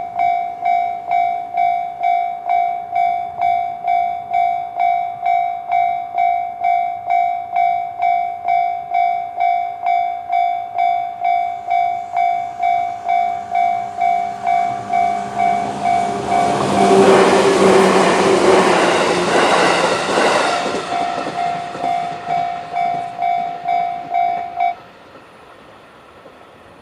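Japanese railway crossing alarm, the JR standard electronic bell, dinging steadily about twice a second. About sixteen seconds in, a JR 211 series electric train passes over the crossing, and its running noise swells over the bell for about four seconds. Near the end the bell cuts off suddenly.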